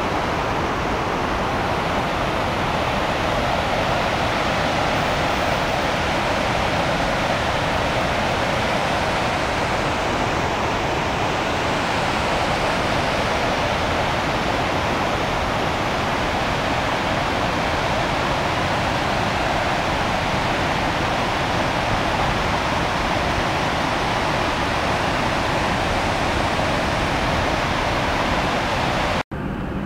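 Swollen, muddy river rushing and churning, a loud steady sound of fast water that cuts off abruptly near the end.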